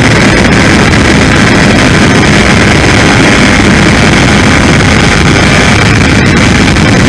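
Electric motor and pusher propeller of a Multiplex Easy Star RC plane running steadily in flight, heard from the onboard camera, with a faint steady whine under loud wind rush on the microphone.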